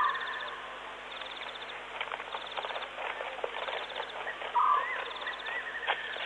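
Night-time bush chorus of calling animals: a fast, high pulsed trill repeating about every second and a quarter, short rising chirps, and a louder short call twice, with scattered clicks.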